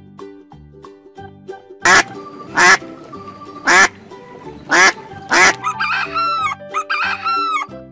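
Duck quacking: five loud quacks spread over about four seconds, then a quick run of softer, higher calls near the end, over background children's music.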